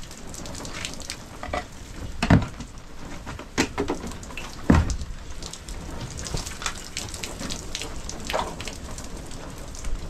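Rain falling, with many sharp ticks and two loud thumps, about two and a half and nearly five seconds in.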